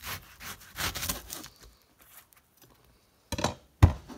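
Kitchen knife slicing a red onion very thin on a cutting board, a few soft cuts in the first second and a half. Near the end comes a sharp knock as the knife is set down on the board.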